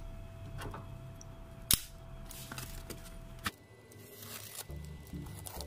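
Handling of a wrapped shipping parcel, with small clicks and one sharp click a little under two seconds in. After a cut, a knife slits the packing tape on a cardboard box, and background music comes in near the end.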